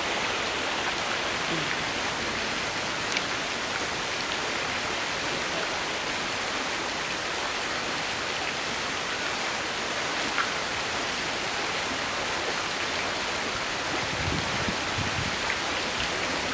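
Steady, unchanging rushing of running water.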